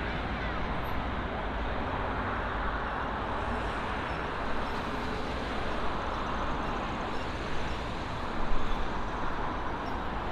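Jet engines of an Airbus A330 airliner running at low taxi power: a steady, even noise with a faint whine coming through late on.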